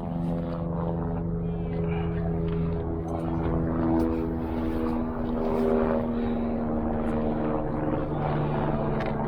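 An engine running steadily, a hum of several tones that shift slightly in pitch.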